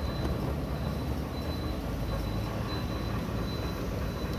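Steady low mechanical rumble, with a faint thin high-pitched whine held throughout.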